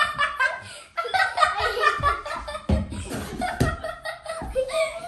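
Young girls laughing and shrieking in high voices, with a few dull thumps under it, about two and a half and three and a half seconds in.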